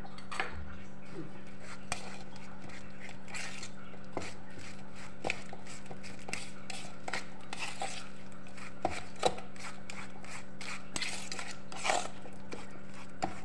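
Metal fork clinking and scraping against a steel bowl while stirring powdered sugar into mashed banana, in irregular strokes about once or twice a second. A steady low hum runs underneath.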